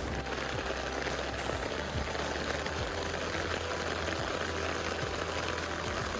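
Heavy rain pouring down in a deluge, a steady dense hiss, with a low steady hum underneath.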